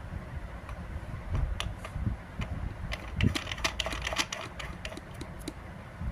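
Quick, irregular small hard clicks and taps from plumbing parts being handled and fitted. They come thickest in the middle of the stretch, over a low rumble of handling noise.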